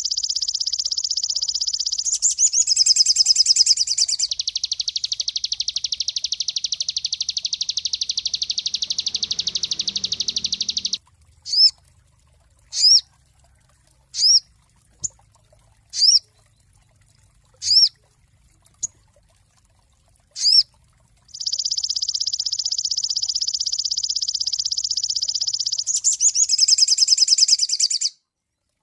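A sogon songbird singing: long runs of a rapid, high, buzzing trill. In the middle the trill gives way to a string of short, sharp down-slurred whistles, about one every one and a half seconds, before the trill resumes and breaks off near the end.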